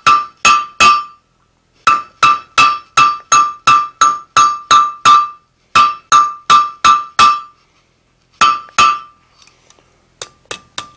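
Hand hammer striking a red-hot iron bar laid in a swedge on the anvil, about three blows a second in four runs with short pauses, each blow ringing clearly. The bar is being rounded into a cabinet handle. Near the end come a few lighter taps and clinks.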